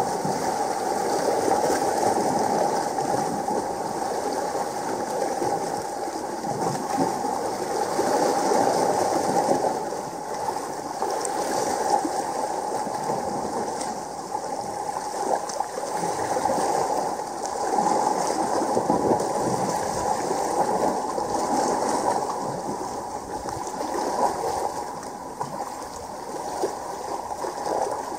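Sea water washing and gurgling against the base of a rocky shore, a steady noise that swells and eases every few seconds.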